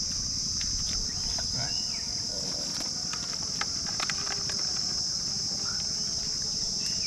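Steady high-pitched drone of insects in the trees, with scattered light crunches and clicks of footsteps in dry leaf litter.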